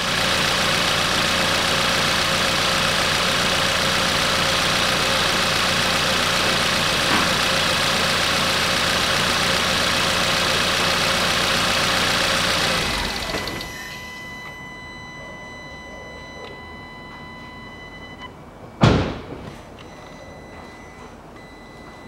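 Volkswagen Scirocco's 1.4 TSI turbocharged four-cylinder engine idling steadily after an oil and filter change, then switched off about thirteen seconds in. A single sharp knock follows several seconds later.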